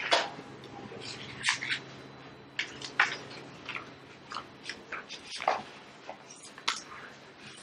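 Household handling noises as someone comes in through a door and sets things down: a door sound at the start, then scattered clicks, knocks and rustles, with a couple of duller thumps about one and a half and five and a half seconds in.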